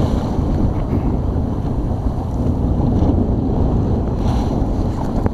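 Strong wind blowing across the microphone over the rush and splash of choppy water against a Mirror sailing dinghy's hull as it drives through the waves, with spray coming over the bow.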